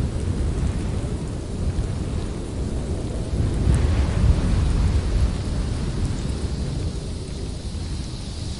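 Blizzard wind gusting against the microphone: a deep, unsteady rumble with a fainter hiss above it, swelling about four seconds in.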